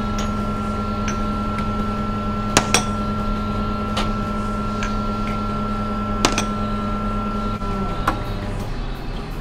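La Marzocco espresso machine humming steadily as it pumps water through the portafilter during a shot, with small ceramic cups clinking as they are swapped under the spout about two seconds in and again near six seconds. Near the end the hum cuts off as the shot is stopped at the group's paddle, with one more clink.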